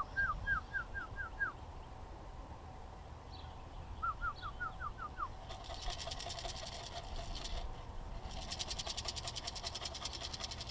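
A small songbird singing a short trill of quick, falling whistled notes, twice: once at the start and again about four seconds in. From about six seconds a fast, even clicking rattle joins in and runs in two stretches.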